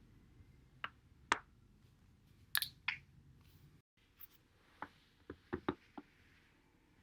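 Spinal joints cracking as a back rolls over a foam roller: a few sharp, separate pops, then a quicker run of five or six pops after a cut.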